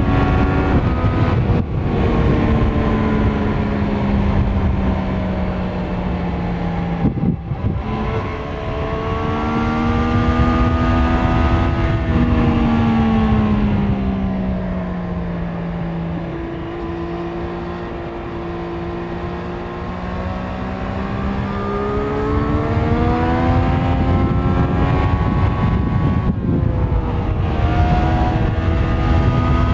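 The inline three-cylinder engine of a Triumph Street Triple 765 RS is running through its stock exhaust while being ridden, its revs falling and climbing several times through the corners. It cuts out briefly about 7 seconds in and again near the end, like quick gear changes, over a steady rush of wind and road noise.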